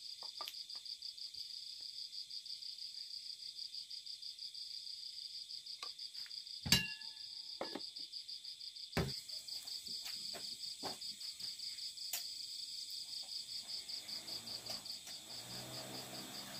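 Insects chirping in a steady, even high-pitched pulse. A sharp knock comes a little before halfway, with a few fainter knocks and clicks after it.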